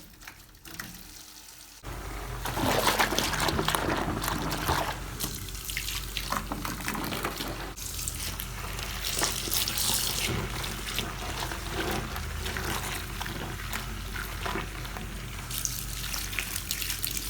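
Water from a tap running and splashing into a bucket as clothes are put to soak for hand-washing, starting suddenly about two seconds in and running steadily.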